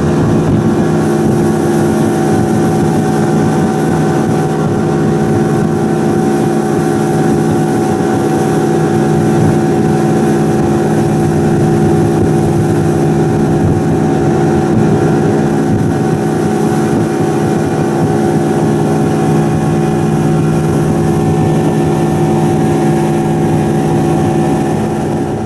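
Outboard motor of a fishing boat running at a steady cruising speed, one unchanging engine tone, with the rush of wind and water as the boat planes across the lake.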